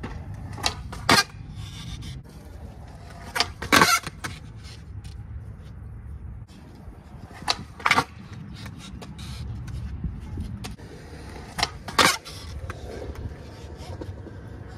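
Skateboard wheels rolling on concrete with a steady rumble, broken four times by a pair of sharp cracks about half a second apart: the tail popping off the ground and the board landing, as big spin attempts.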